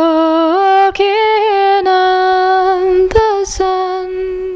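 A woman singing unaccompanied, holding long sustained notes with a few small steps in pitch and a brief ornamented turn, growing quieter near the end. A few short clicks cut through the singing.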